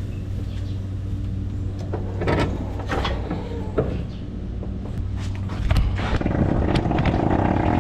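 Steady low hum of the hoof-trimming chute's machinery, with scattered sharp knocks and scrapes.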